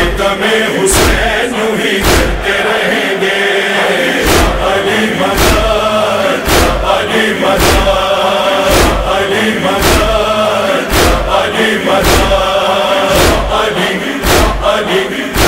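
Nauha (Shia mourning lament) track between verses: a chorus of voices chanting over a heavy, even beat that strikes about once a second.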